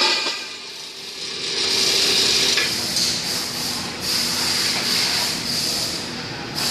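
Automatic pipe-cutting machine running a cut in automatic mode: a steady rasping, hissing noise with a low hum underneath, quieter about a second in and building up again before settling into a steady run.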